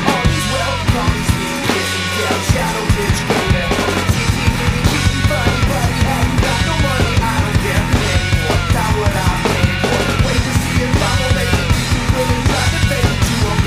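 Studio recording of a punk-style rock band playing an instrumental passage, without vocals: a drum kit keeps a steady beat under bass and electric guitar.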